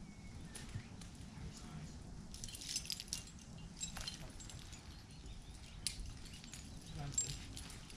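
Faint outdoor ambience: a steady low rumble with scattered brief high-pitched chirps and ticks, bunched about two to four seconds in and again near the end.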